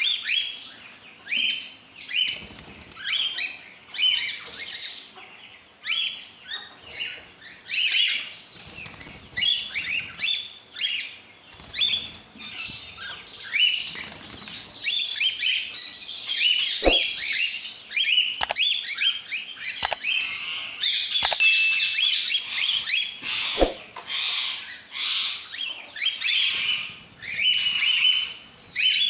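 A flock of cockatiels chirping and chattering almost without pause in quick, high calls. Several sharp clicks sound in the second half.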